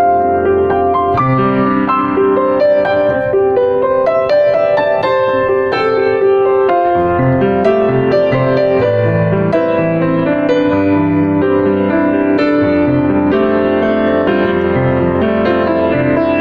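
Background piano music: a steady flow of notes over sustained low bass notes.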